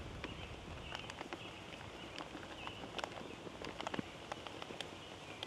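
Cheese cubes being added by hand to a pan of potatoes and gravy on a camp stove: scattered light clicks and taps over a faint steady background hiss.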